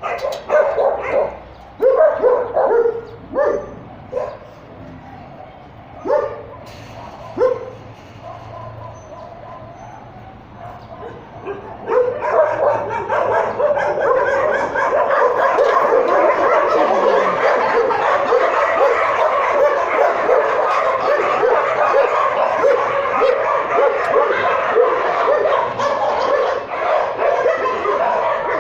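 Shelter dogs barking. First come a handful of separate barks, then from about twelve seconds in many dogs bark and yelp together in a dense, unbroken chorus.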